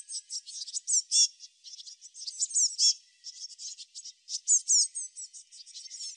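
Dense, high-pitched animal chirping: many quick, sweeping notes overlapping one another with hardly a pause.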